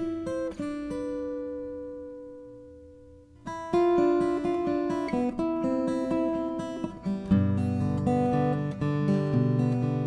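Acoustic guitar background music, picked. Early on a chord is left to ring and fade away, then the picking starts again. Lower notes join in about seven seconds in.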